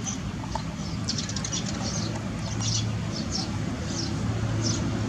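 High-pitched chirping in quick clusters of short chirps, several a second, over a low steady hum.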